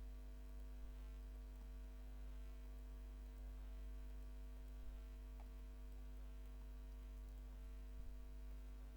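Steady electrical mains hum in the recording's microphone signal, low and constant, with a few faint clicks.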